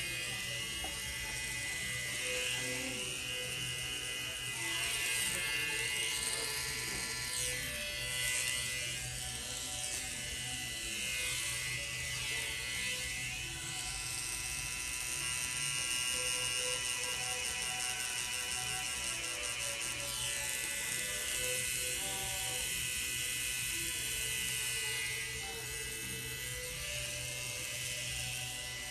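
Pen-style tattoo machine buzzing steadily as it works ink into the skin.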